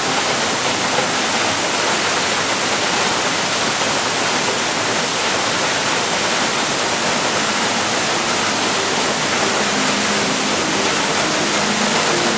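Large waterfall pouring: a steady, loud rush of falling water.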